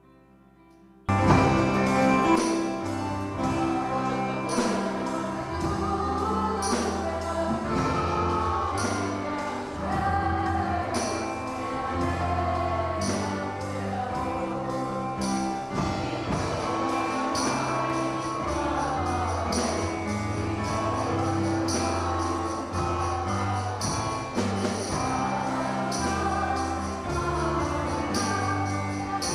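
Worship music with voices singing over a band, starting suddenly about a second in, with a steady beat of jingling percussion.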